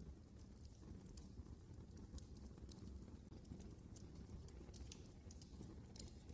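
Quiet wood fire burning in a fireplace: irregular small crackles and snaps over a steady low rumble of the flames.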